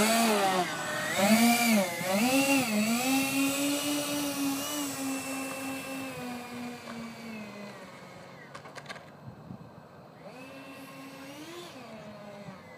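Twin 70 mm 12-blade electric ducted fans of a foam RC jet whining as it taxis, the pitch rising and falling with the throttle. The sound fades steadily as the jet moves away, then swells briefly again near the end.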